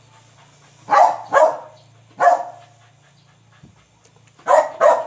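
Dog barking: five sharp barks, a pair about a second in, a single bark soon after, and another pair near the end.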